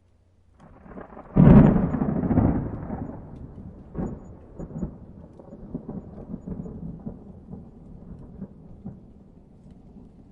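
Thunder: a rumble builds about half a second in and breaks into a loud clap a second later. It then rolls on with a couple of sharper cracks around four seconds in, fading away gradually.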